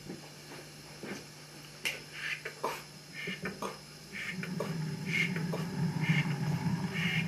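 Scattered short sounds, then from about four seconds in a steam locomotive running, a steady low rumble with hiss that grows louder.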